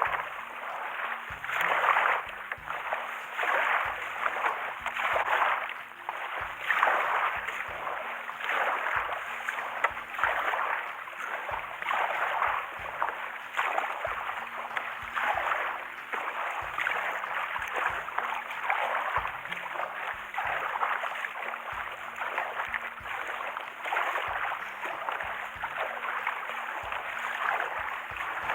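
Water washing and splashing around a kayak on the sea, swelling and easing about every one and a half to two seconds.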